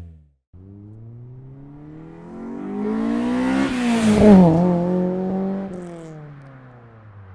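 Honda S2000's four-cylinder engine, breathing through an ARK N-II single-exit catback exhaust, test pipe and header, accelerating toward the microphone with its pitch climbing. It passes about four seconds in, where it is loudest and the pitch drops, then fades away.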